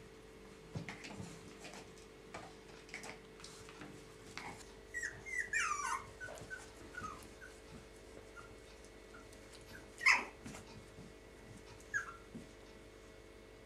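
Yorkshire terrier puppies squeaking and whimpering as they play, with a run of wavering high squeals about five seconds in and a single sharp yip about ten seconds in, among light taps and scuffles.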